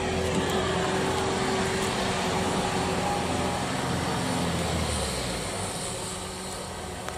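Kubota DC105X combine harvester running steadily, its engine and threshing and cleaning machinery giving an even mechanical hum with a constant tone.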